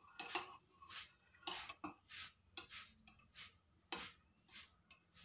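Spoon stirring corn porridge in a ceramic bowl, clinking and scraping against the bowl with a soft stroke about every half second.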